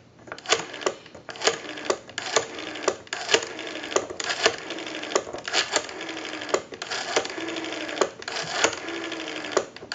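Rotary dial of a Western Electric 302 desk telephone being pulled round and let go, digit after digit. It gives repeated clicks and a short falling whir each time the dial spins back to rest, as the number is dialed out.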